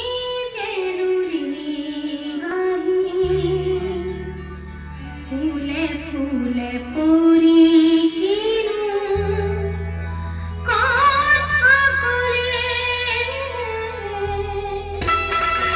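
Music for a dance performance: a woman singing a gliding, wavering melody over a sustained low accompaniment. A fuller, brighter section comes in about eleven seconds in.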